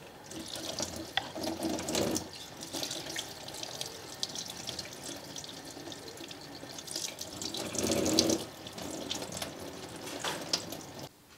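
Tap water running into a stainless steel sink and splashing off a sheet of stained maple veneer being rinsed under the stream. It swells louder about two seconds in and again around eight seconds, then stops just before the end.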